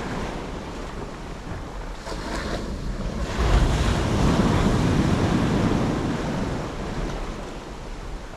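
Sea waves breaking and washing up the shore, one swelling louder about three and a half seconds in and easing off after about six seconds, with wind rumbling on the microphone.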